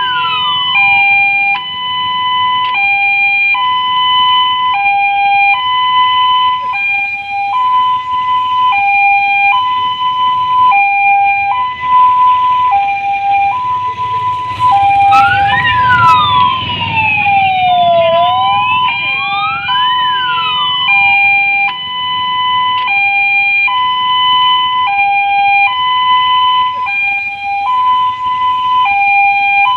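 Emergency vehicle sirens: a two-tone hi-lo siren switching steadily between two pitches about every two-thirds of a second, with a second siren's wail sweeping up and down over it near the start and again about halfway through.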